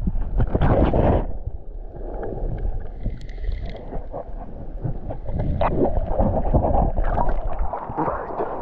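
Muffled water noise against an underwater camera while a freediver swims through seaweed: crackling bubbles, gurgling and many small clicks. It grows fuller near the end with splashing as he comes up to the surface.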